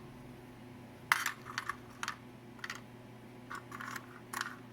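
Keys and keycaps of a Commodore SX-64 keyboard clicking as they are pressed and fitted back on: a string of irregular plastic clicks, some in quick pairs, starting about a second in.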